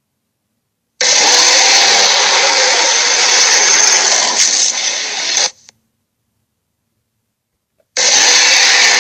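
Cartoon sea monster sound effect: a loud, harsh, rasping noise that starts suddenly about a second in, lasts about four and a half seconds and cuts off abruptly. After a couple of seconds of dead silence, another starts near the end.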